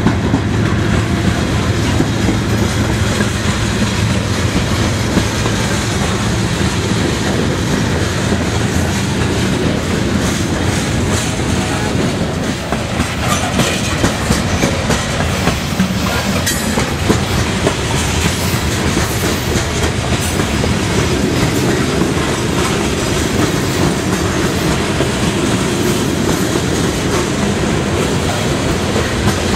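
Loaded coal train's hopper and gondola cars rolling past close by, steel wheels running steadily over the rails, with a brief dip in level near the middle.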